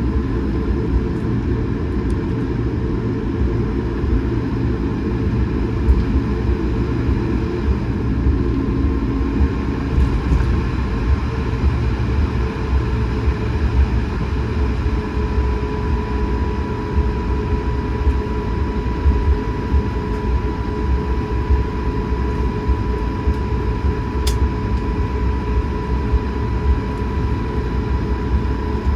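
Steady cabin noise of an Airbus A220-100 on the ground after landing: a low rumble with a steady engine whine that grows clearer about halfway through, and one faint click near the end.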